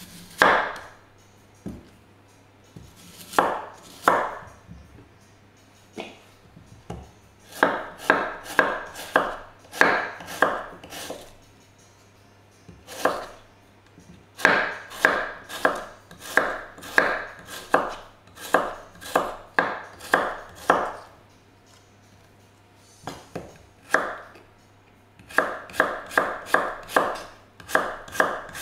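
Kitchen knife slicing a cucumber on a wooden cutting board: sharp strokes through the flesh onto the board, coming in runs of about two to three a second with short pauses between, the quickest run near the end.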